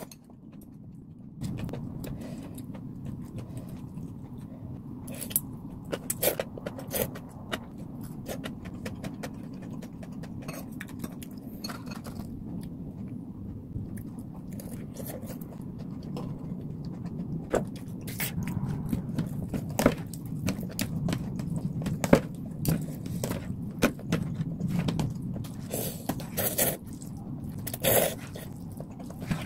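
Eating sounds: chewing and crunching bites of battered fried pork and slurping noodles, with metal chopsticks clicking against plastic food containers. These come as many sharp clicks and crunches over a steady low hum.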